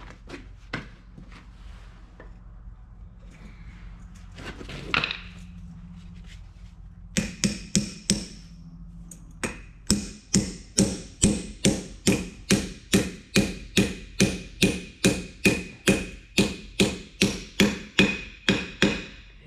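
Hammer blows driving a bearing onto a truck transmission countershaft (Eaton 13-speed auxiliary section). A quick group of about five blows comes first, then a steady run of two to three blows a second, each with a short metallic ring.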